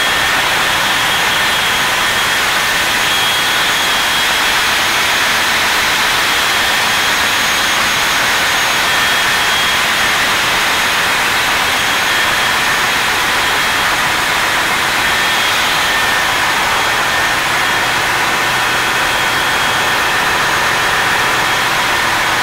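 Steady, loud engine-room noise from a container ship's running diesel machinery: the two-stroke main engine and auxiliary diesel generator sets. It is a dense, unbroken roar with a few faint, steady whining tones above it.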